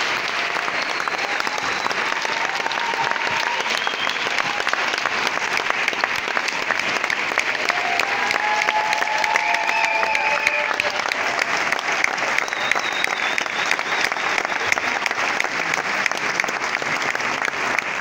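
Theatre audience applauding steadily, dense clapping with a few faint calls rising above it, at the end of a song.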